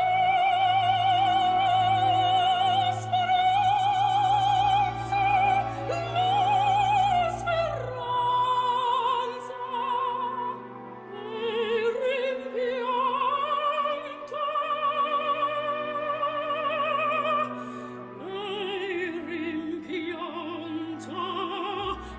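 Operatic music: a singer holds long notes with wide vibrato, moving between held pitches every few seconds, over a sustained low accompaniment.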